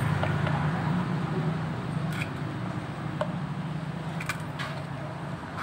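Drone of a motor vehicle passing by, slowly fading away, with a few faint light clicks of small metal engine parts being handled.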